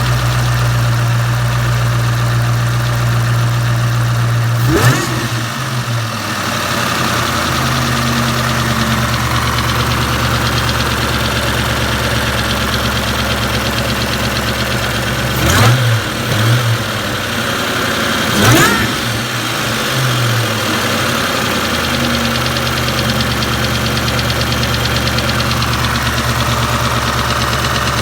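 Boosted Ford Mustang engine (a 2003 Cobra SVT clone) idling with a ticking noise, blipped a few times and dropping back to idle. The tick comes only when the engine is warm and at or returning to idle, and it persists with good oil pressure and new lash adjusters and roller rockers; the owner does not know its cause.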